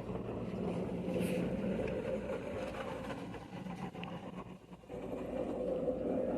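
A steady low mechanical hum with a faint rumble.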